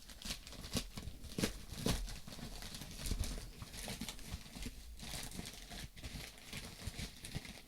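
Plastic packaging crinkling and rustling as it is handled, with irregular light clicks and taps.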